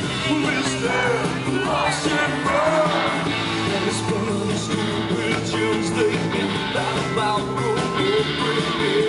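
Rock and roll band playing, guitars and rhythm section with a singing voice over them, at a steady loud level.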